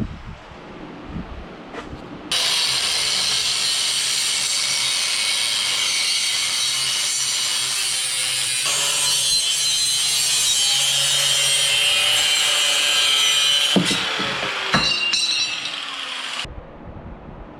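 Angle grinder with a cutoff wheel cutting metal: a loud, harsh, hissing grind that starts suddenly a couple of seconds in and stops abruptly near the end, with a falling tone under it just before it stops.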